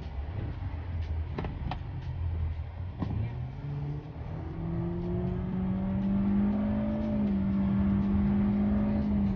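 Hyundai Stargazer's 1.5-litre four-cylinder engine, heard from inside the cabin, accelerating hard. From about three seconds in, its note climbs for a few seconds, then holds steady at high revs, with a brief dip about seven seconds in. A few light clicks come in the first few seconds.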